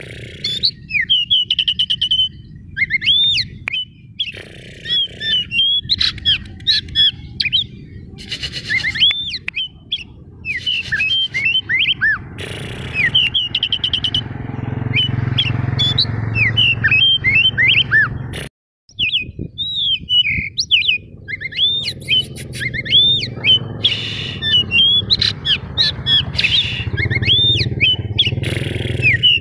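Oriental magpie-robin (white-breasted kacer) singing loud, fast, varied whistled phrases of rising and falling notes, mixed with harsh scratchy notes. The song breaks off for an instant just past the middle.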